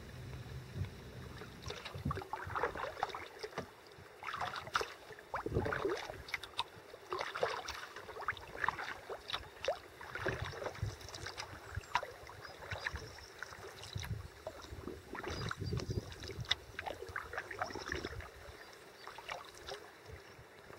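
Kayak paddling: the paddle blades dip and splash in lake water every second or two, with drips and water lapping along the hull. The splashing fades near the end.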